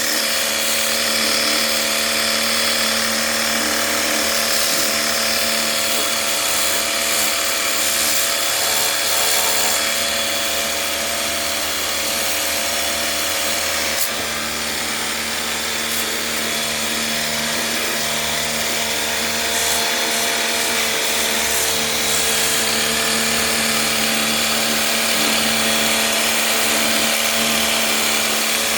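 Electric pressure washer running steadily while spraying water into a split air conditioner to wash out the dirt: a constant motor hum with a hiss of spray over it, dipping briefly about halfway through.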